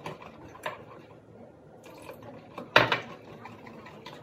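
Wire whisk beating a runny flour batter in a plastic bowl: soft scraping and sloshing, with one sharper knock of the whisk against the bowl a little under three seconds in.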